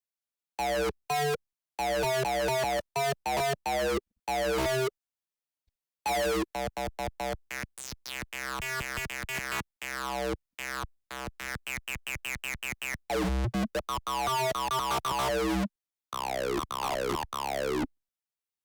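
Square-wave synth bass played through a resonant band-pass filter with drive, giving squelchy acid 'ow' notes. The notes are short with silent gaps between them, speed up into a quick run from about six seconds in, and end with falling filter sweeps.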